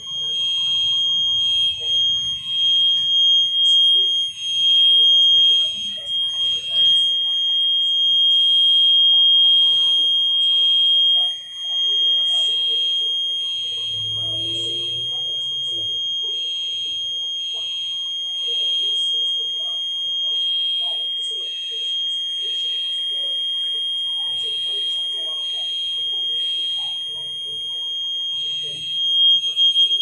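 Building fire alarm sounding continuously: a steady high-pitched tone with a second tone pulsing over it about once a second. The alarm is still going, waiting for the fire department to silence it.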